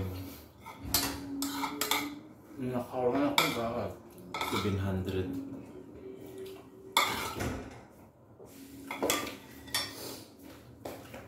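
Spoons and forks clinking and scraping against ceramic plates and bowls during a meal, with irregular sharp clicks and knocks.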